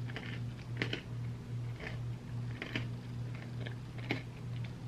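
Chewing a mouthful of ice cream sundae with the mouth closed: scattered soft clicks and small crunches, close to the microphone, over a steady low electrical hum.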